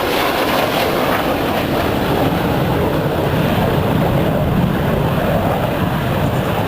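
Steady jet noise from the Red Arrows' BAE Hawk jets, their Adour turbofan engines flying in formation during the display.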